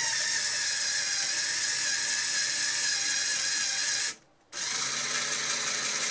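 Lego Technic linear actuators and their gearing whirring steadily as they pull a string-and-pulley block along. The sound stops for about half a second a little after four seconds in, then starts again as the pulley block reverses direction.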